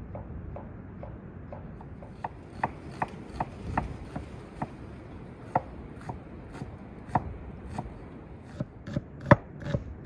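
Large kitchen knife chopping onion on a thick wooden board cut from a tree trunk: an even run of knocks, about two to three a second, growing louder near the end.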